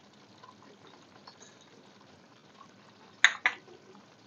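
Sugar syrup with makhana and dry fruits bubbling faintly in a pan, with two sharp clicks close together about three seconds in.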